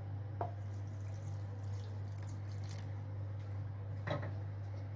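Milk poured from a small pot into a bowl of vermicelli: a faint, even liquid pouring and dripping, over a steady low hum.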